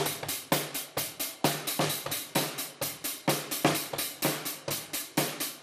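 Drum kit played in a steady, simple beginner's beat: hi-hat, snare and bass drum strokes at about five a second, with heavier snare and kick hits among them.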